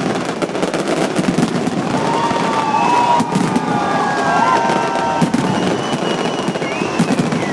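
Fireworks display: dense, continuous bangs and crackling, with several high whistle tones held between about two and five seconds in.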